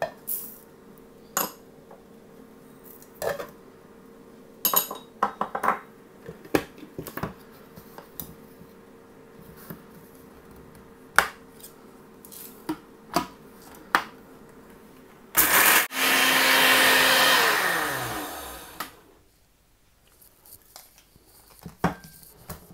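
Electric blender's small dry-grinding jar running for about three and a half seconds, grinding fennel seeds, green cardamom and black pepper to powder, the motor winding down with a falling whine as it stops. Before it, scattered clicks and knocks of the plastic jar being handled and fitted, and a few more knocks near the end.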